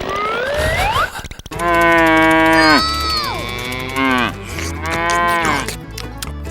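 Cow mooing: several long moos, each about a second, that drop in pitch at the end. Two rising whistle-like glides come in the first second or so.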